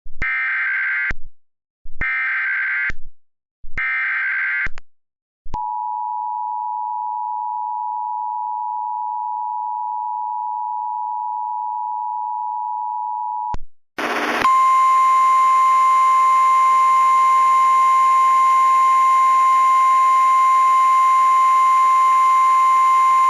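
Emergency Alert System tones: three short warbling SAME data-header bursts, then the steady two-tone EAS attention signal for about eight seconds. After a brief gap comes a single steady NOAA Weather Radio 1050 Hz alert tone over a hiss.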